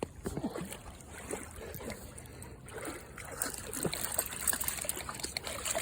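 Dogs wading and splashing in shallow river water, with irregular small splashes and sloshes over running water.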